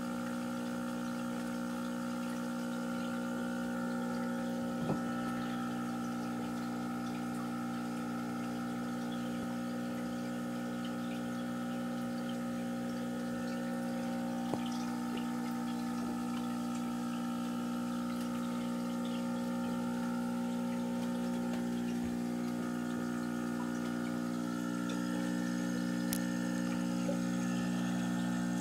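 Aquarium pump running with a steady electric hum and water trickling. There are two faint clicks, about five seconds in and again about fourteen seconds in, and the hum grows a little louder near the end.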